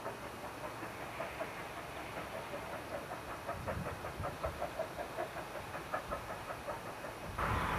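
Distant steam locomotive working, its exhaust beats coming at about four a second and growing louder from about halfway through. The sound turns suddenly louder just before the end.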